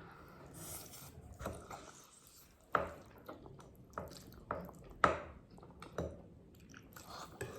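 Eating utensils clinking and scraping against a bowl of noodles, a handful of sharp, irregular clicks, with faint wet eating sounds between them.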